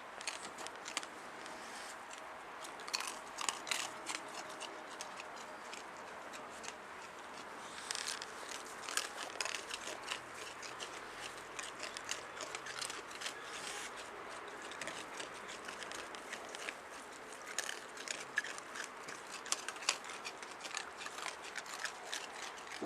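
Raccoons eating, with irregular crunching and crackling clicks as they chew dry food.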